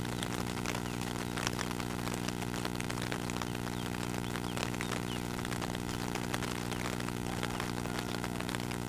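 A small engine or motor running steadily nearby, a constant hum of several even tones, with light rain pattering on the water.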